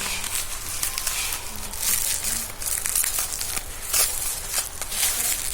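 Packaging crinkling and rustling as it is handled and opened, with irregular small clicks and swells of crackle.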